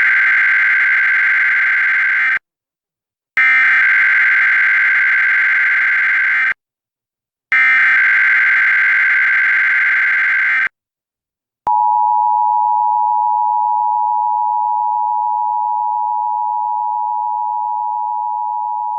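Emergency Alert System broadcast tones: three bursts of the SAME digital header, each about three seconds with about a second of silence between. About twelve seconds in, the steady two-tone EAS attention signal (853 and 960 Hz together) starts and holds.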